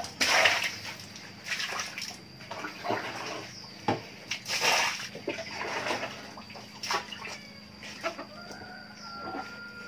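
Chickens clucking, with irregular rustling of leafy vine stems being stripped by hand.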